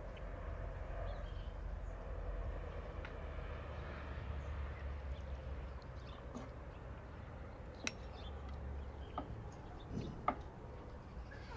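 A few light clicks and taps of a metal slotted spoon and a wooden spatula against wooden plates as noodles are served, coming in the second half over a steady low rumble.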